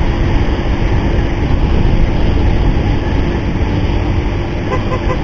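Motorcycle cruising at road speed: steady engine running under heavy wind rush over the action camera's microphone.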